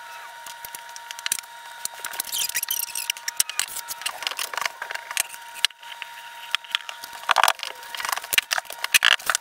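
Notched steel trowel scraping and combing flooring adhesive across an OSB subfloor, with squeaky scrapes and clicks. A few louder knocks come near the end as an engineered hickory board is set down into the glue.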